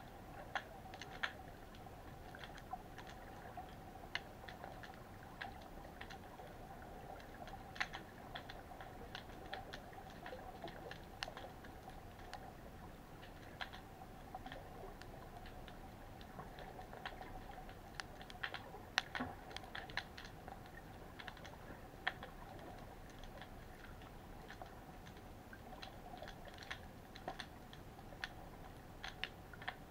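Underwater sound at a baited crab net on the seabed: faint, irregular clicks and crackles scattered through a steady faint hum.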